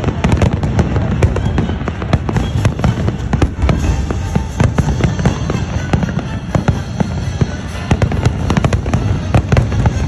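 Aerial fireworks display going off in a dense barrage: rapid, overlapping bangs and crackles over a continuous low rumble, with no let-up.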